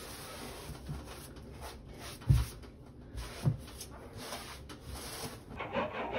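A sponge being rubbed back and forth over a wall, a steady scratchy rubbing with two dull thumps in the middle.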